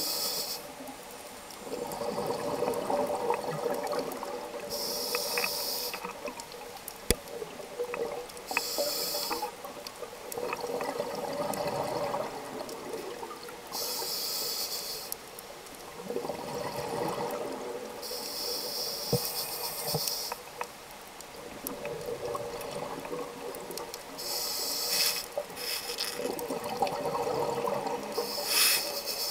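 Scuba diver breathing through a regulator underwater. Short hissing inhales every few seconds alternate with longer stretches of bubbling exhaled air.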